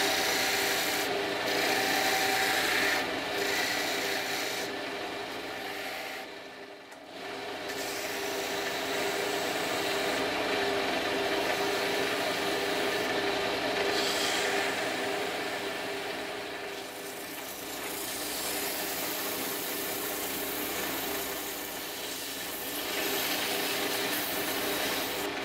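Small wood lathe running with a steady motor hum while a turning chisel scrapes and cuts the spinning spalted horse chestnut door-knob blank. The cutting noise drops briefly about six to seven seconds in, then continues.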